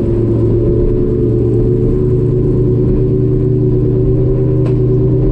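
Evinrude E-Tec 150 two-stroke outboard running steadily at a constant speed on a racing boat, with water and wind noise underneath; a brief click comes near the end.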